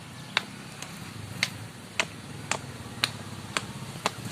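Repeated sharp knocks of a tool striking bamboo, evenly spaced at about two a second.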